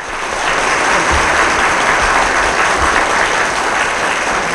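Audience applauding, swelling at the start and then holding steady.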